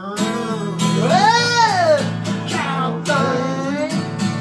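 Acoustic guitars playing a ringing chord under a singer's long held note that swoops up and back down about a second in, followed by a second wavering note near the end.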